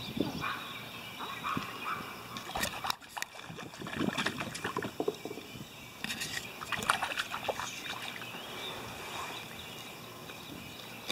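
Lake water sloshing and lapping against kayak hulls, with scattered short knocks and splashes.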